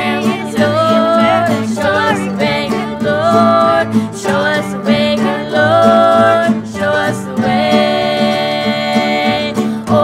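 Small acoustic bluegrass band playing a gospel song: girls singing in close harmony over strummed acoustic guitar, mandolin and plucked upright bass, with a long held chord near the end.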